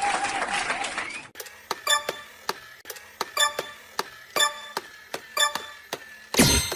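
Even, clock-like ticking: sharp pitched clicks about twice a second. In the first second there is a wavering, voice-like sound, and near the end a short, loud noise.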